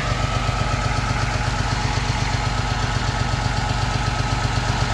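Tractor diesel engines idling steadily while the forage harvester stands stopped.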